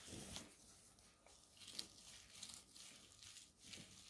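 Near silence, with faint scattered rustles and light taps from hands working dough in a plastic dumpling press and folding it shut.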